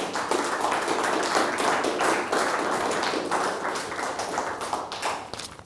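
Small audience applauding, a dense patter of many hands clapping that dies away near the end.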